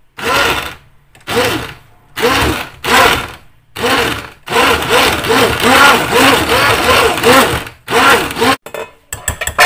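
Hand-held immersion blender puréeing tomato soup in a pot, its motor whirring up and cutting off in short pulses about once a second, then running for about three seconds before one last pulse. A few sharp clicks near the end.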